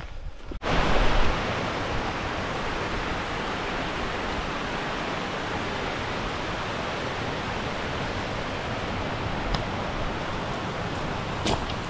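Mountain stream and waterfall rushing over rocks: a steady, even rush of water that starts abruptly about half a second in.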